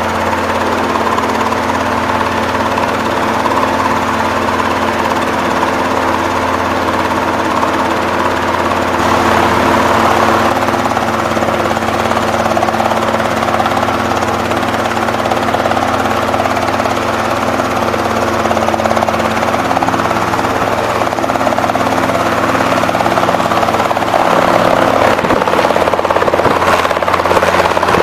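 Robinson R22 Beta helicopter running: its piston engine and two-blade rotor make a steady drone with a few held tones, growing slightly louder near the end.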